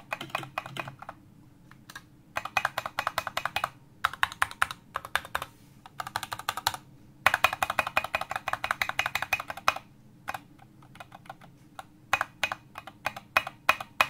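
Mechanical keyboard space bar pressed over and over in quick runs of clacks with short pauses, becoming sparser taps in the last few seconds. It gives a clean clack with no stabilizer rattle, wherever along the bar it is pressed.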